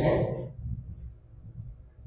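A man's voice ends a word, then a pause with a low steady background hum and a brief soft hiss about a second in.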